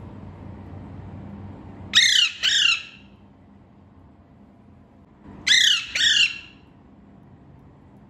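A green Psittacula parakeet calling in two quick pairs of loud squawks, the pairs about three and a half seconds apart.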